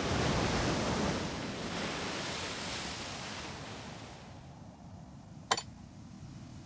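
Sea surf washing in a steady wash of noise that fades away over about four seconds. About five seconds in comes a single sharp knock: a knife striking a coconut shell to crack it open.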